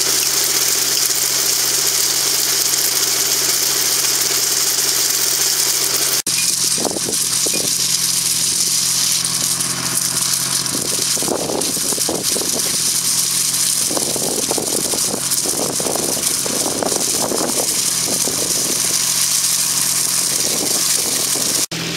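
Tractor engine running steadily under load while a mounted ID David vineyard sweep unit spins along the vine row, with a strong hiss from the sweeps and dust. The sound changes abruptly about six seconds in, after which the hiss is weaker and irregular clattering of stones and debris being swept and thrown comes and goes over the engine.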